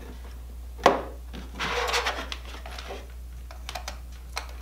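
HDMI cords and small HDMI extender receiver boxes being handled and plugged in on a tabletop: one sharp knock about a second in, then cables rubbing and rustling, and a few light clicks near the end, over a low steady hum.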